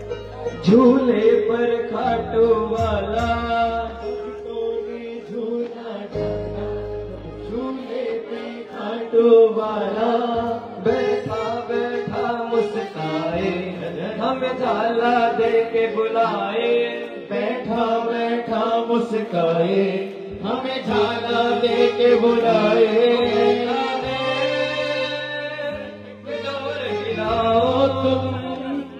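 A male voice singing a Hindu devotional bhajan (sankirtan) through a microphone and PA, over held instrumental chords and low bass notes that change pitch every second or two.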